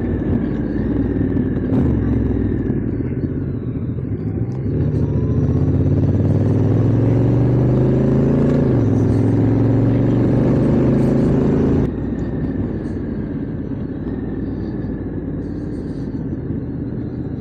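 Honda Africa Twin motorcycle engine under way. The engine note climbs from about four seconds in, dips once near nine seconds, then holds steady before getting suddenly quieter just before twelve seconds.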